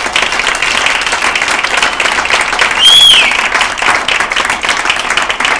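Audience applauding. About three seconds in, someone in the crowd gives one loud whistle that rises briefly and then falls in pitch.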